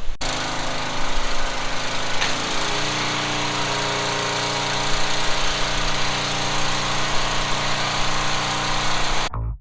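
Pressure washer running, its motor's steady drone under the hiss of the spray. The motor's pitch shifts about two seconds in, and the sound cuts off suddenly near the end.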